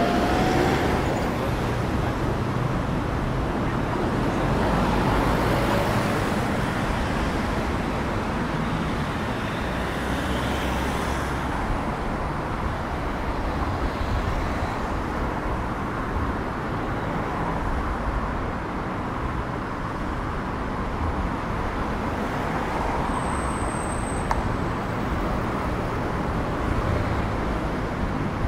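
Steady road traffic noise, with cars going by.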